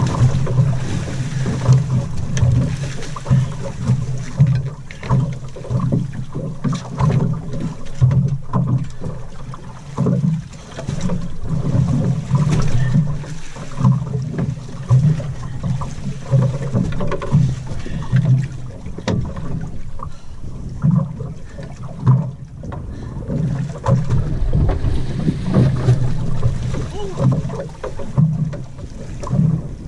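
Small boat's outboard motor running at idle, a steady low hum, under wind buffeting the microphone that makes the level rise and fall irregularly.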